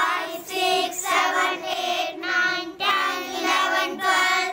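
A group of children counting aloud together in a sing-song chorus.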